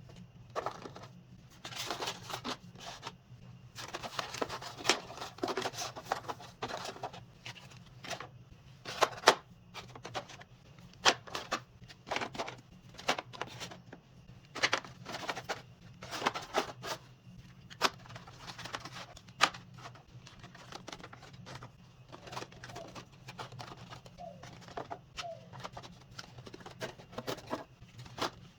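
Handling noise of small items and packaging: irregular rustles, taps and clicks as things are picked up, sorted and set down, over a faint steady hum.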